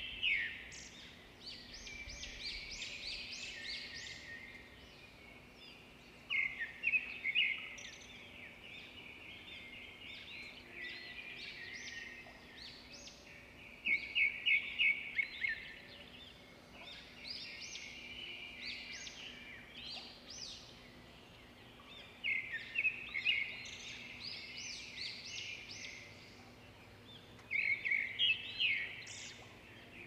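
A songbird singing almost continuously in high chirps and trills. Every six to eight seconds the song swells into a louder burst of rapid repeated notes.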